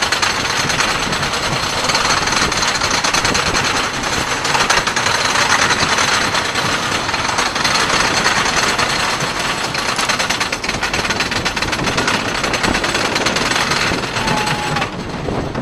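Wooden roller coaster's chain lift: a steady, rapid mechanical clatter from the lift chain and anti-rollback ratchet as the train climbs. The clatter thins out near the end.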